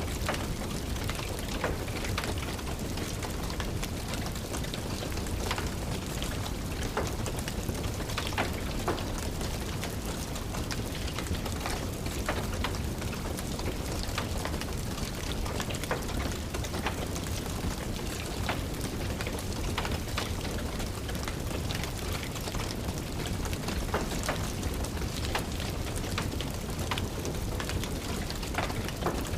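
Steady rain with a low rumble underneath, mixed with irregular sharp crackles and pops of a wood fire in a fireplace, about one or two a second.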